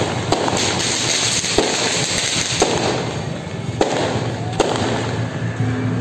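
Strings of firecrackers crackling continuously, with louder single bangs about once a second.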